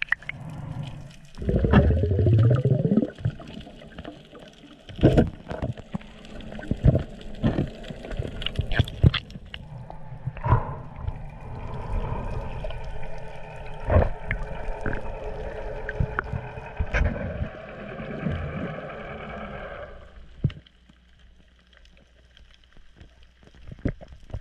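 Sound picked up by a camera held underwater: muffled water movement and gurgling, broken by many short knocks and clicks. There is one loud rush about two seconds in, and it goes quieter near the end.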